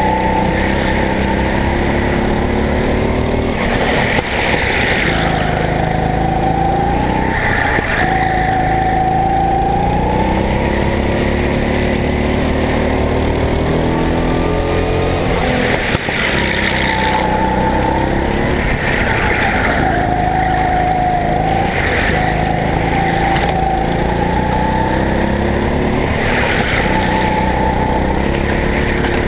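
Go-kart engine heard from the driver's seat, its pitch rising as it accelerates and falling as it slows, over and over every few seconds.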